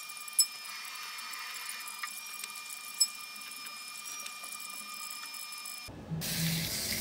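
A steady high-pitched whine with two sharp clicks, about half a second in and three seconds in; it cuts off suddenly near the end. Then meat sizzles on a tabletop barbecue grill.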